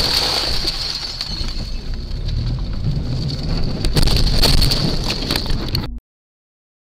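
Car cabin noise with a steady high whine, as a car drives into the side of a tram: a few sharp knocks about four seconds in, then the sound cuts off suddenly.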